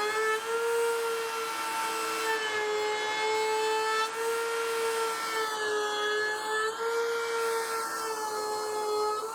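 Electric power tool motor running steadily on a woodworking job, a high whine whose pitch dips and recovers slightly as it is loaded.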